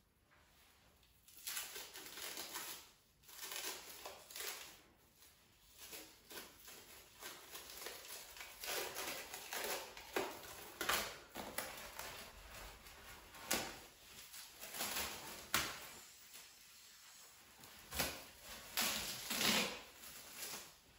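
Cling film crinkling and crackling as it is pulled off the roll and handled, with irregular bursts and several sharp snaps.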